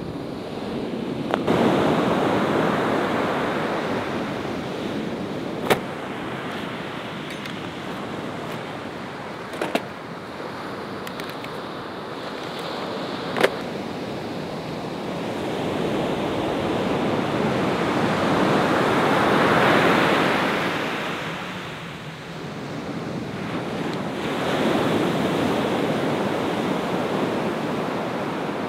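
Ocean surf breaking on a beach, the noise swelling and falling away in slow surges, loudest about two-thirds of the way through. A few short sharp clicks sound over it.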